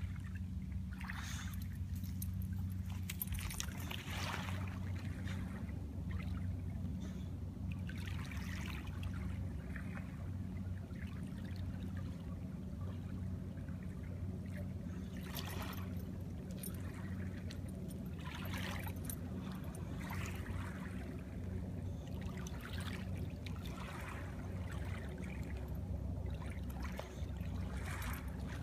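Small waves lapping and splashing at the water's edge in irregular bursts, over a steady low hum.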